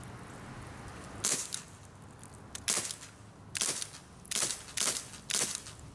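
Umarex Brodax CO2 BB revolver firing a string of about six sharp pops, the first alone and the rest coming faster, nearly two a second toward the end.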